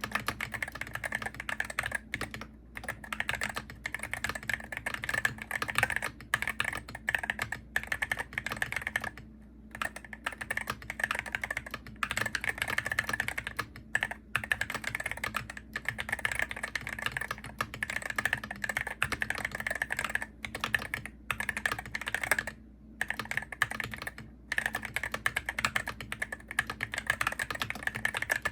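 Continuous fast typing on a Hero68HE gaming keyboard: a dense run of key clicks, broken by two short pauses, about a third of the way in and about three quarters of the way in.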